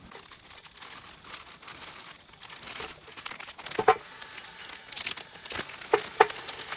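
Plastic and paper food packaging crinkling and tearing as it is cut open and sausages are unwrapped by hand. A few sharp clicks stand out about four seconds in and twice more near the end.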